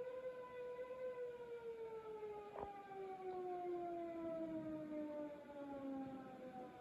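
Civil defence warning siren holding one tone that falls slowly in pitch from about a second in. It is sounding the "Attention everyone!" signal in a test of the regional warning system. A single click is heard about two and a half seconds in.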